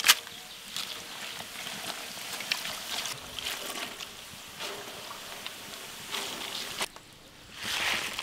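Dried red chillies frying in hot coconut oil: a steady sizzle with many small crackles as a mesh strainer is drawn through the pan. Near the end a louder rustling rush as the fried chillies are tipped from the strainer onto a tray.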